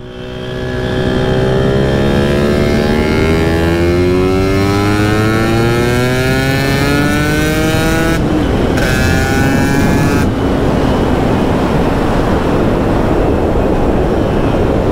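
Vespa 50 Special with a Quattrini M200 two-stroke cylinder kit and 2L Tech expansion exhaust, ridden under acceleration. The engine note rises steadily in pitch for about eight seconds, drops suddenly as at a gear change, then runs on with a rougher, noisier sound.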